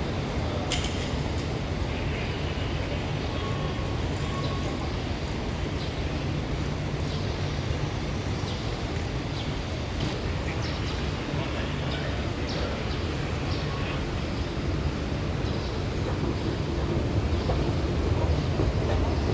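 Steady rumble and rush of the Whoosh high-speed train running, heard from inside the passenger car, with a sharp click about a second in and a few faint ticks.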